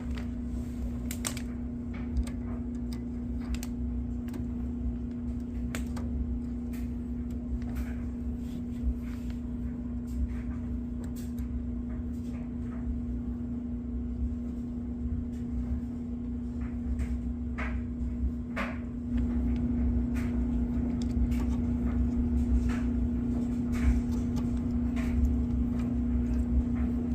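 Scattered small clicks and handling noises as wire connectors are pulled off the old furnace control board and pushed onto the new one, over a steady low hum that gets a little louder about two-thirds of the way in.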